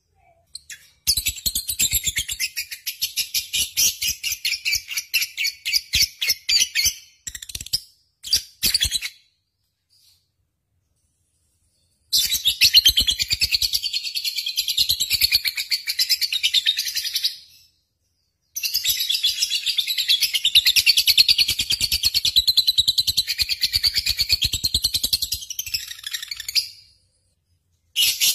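Lovebird singing vigorously in long bouts of rapid, high chattering trills, the longest about eight seconds, broken by short pauses.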